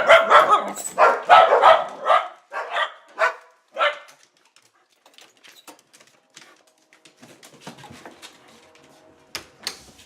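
Sheltie puppy barking in a quick series of about eight yaps over roughly four seconds, then falling quiet apart from faint clicks.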